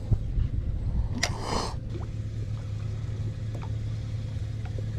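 Water dripping and sloshing against the side of a small fishing boat over a steady low hum, with one short splash just over a second in.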